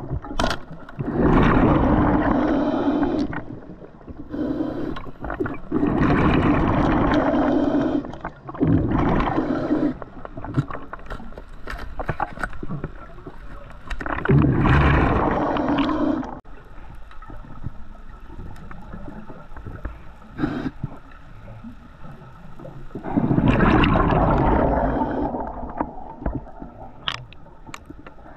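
Underwater exhaust bubbles from a scuba diver's regulator: repeated loud bubbling bursts of a second or two as the diver breathes out, with quieter stretches in between, the longest in the second half. Faint clicks are scattered throughout.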